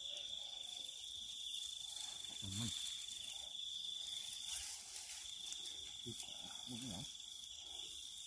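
A steady, high-pitched insect drone that breaks off for about half a second near the middle, then carries on.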